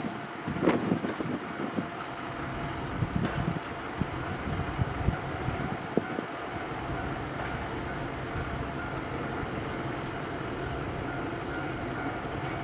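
Steady low rumble of a running motor vehicle with a faint constant hum, and a few short knocks in the first second.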